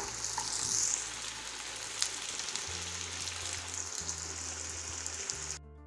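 Masa quesadilla frying in a skillet of hot oil, the oil sizzling and bubbling steadily. Low background music notes come in about halfway through. The sizzle cuts off suddenly near the end, leaving only the music.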